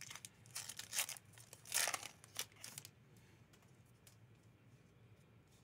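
A Masters 25 booster pack's foil wrapper being torn open by hand. There are several quick rips and crinkles over the first three seconds, with the loudest rip about two seconds in.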